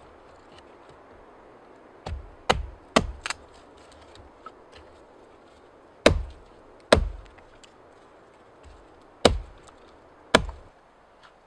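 Axe blade striking wood against a fallen log: sharp chops in small groups, four close together, then two, then two more, with pauses between, as a small stick is split and shaved for kindling.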